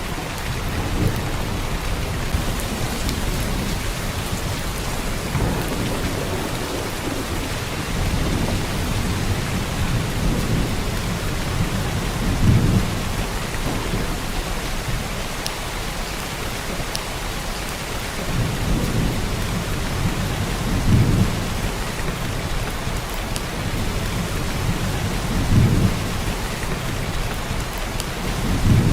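Heavy downpour of rain, a steady dense hiss, with brief low rumbles swelling up about four times.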